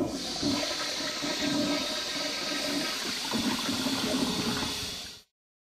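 Steady rushing, water-like noise with a wavering low hum underneath, cutting off suddenly about five seconds in.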